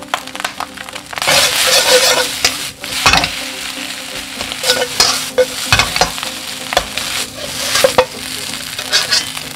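Fried rice with tuna and vegetables sizzling in a wok while a metal spatula stirs and tosses it, with repeated scrapes and clicks of the spatula against the pan. The sizzle swells loudest for a couple of seconds about a second in.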